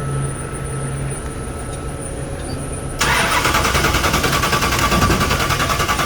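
Starter cranking the 8-71-blown V8 of a 1970 Dodge Charger, starting suddenly about three seconds in with an even, rapid pulsing. The engine turns over without catching, a no-start caused by no fuel reaching it.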